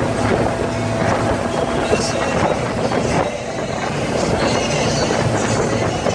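Motorboat engine running at speed with a steady drone, under the rush of churning wake water and wind.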